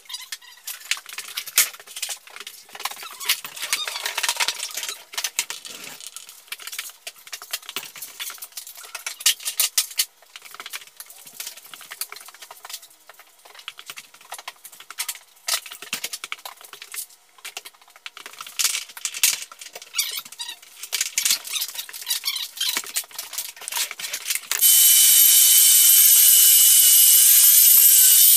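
Irregular light scraping and clicking, then near the end an electric floor-sanding machine starts abruptly and runs steadily with a high whine, sanding the wood floor.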